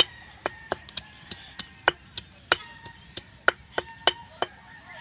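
A hand-held flat stone struck repeatedly in sharp knocks, about three a second at uneven spacing, against a long blade or stick on a rock.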